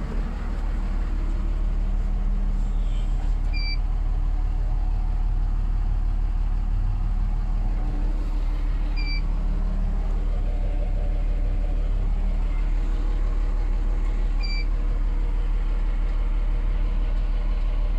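Valtra 8150 tractor's diesel engine running steadily, heard from inside the cab. A short high chirp sounds about every five and a half seconds.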